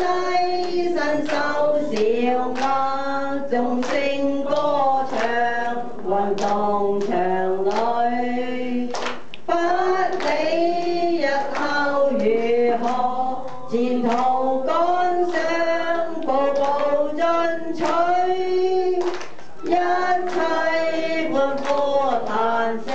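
A small group of men and women singing a song together, a woman's voice through a microphone carrying the melody line.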